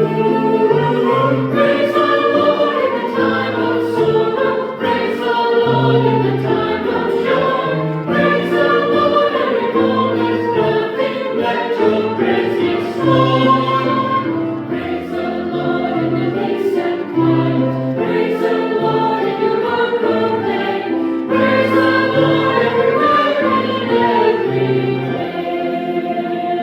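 Church choir singing with piano accompaniment.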